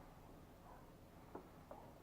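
Near silence: room tone with two faint short clicks in the second half.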